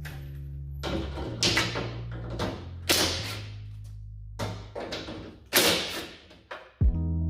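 Background music with a low bass line changing note every second or so, with several sharp knocks or clacks on top, some ringing briefly after.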